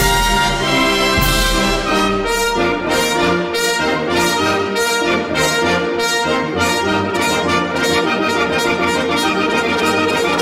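Orchestral music led by brass, with a fast, regular beat of short accents that starts about two seconds in.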